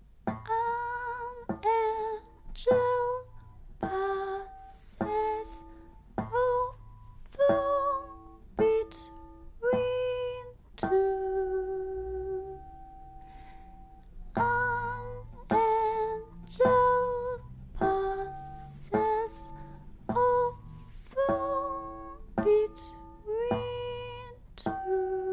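Sparse acoustic guitar playing, single plucked notes about one a second, each ringing briefly, with a pause about eleven seconds in where one note is left to ring before the playing resumes.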